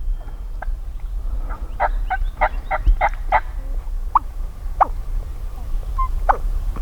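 Wild turkey tom gobbling: a quick rattling run of calls about two seconds in, followed by a few single falling calls, over a low rumble.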